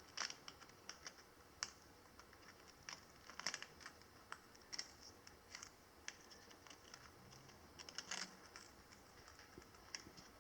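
A parrot crunching a biscuit with its beak: faint, irregular small cracks and clicks, some coming in short clusters.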